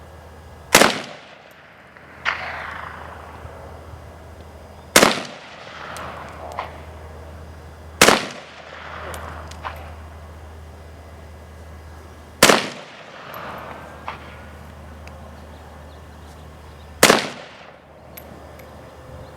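Hungarian underfolder AK-47 in 7.62×39 fired single shots, five reports several seconds apart, each with a ringing tail. A fainter second crack follows each shot about a second and a half later.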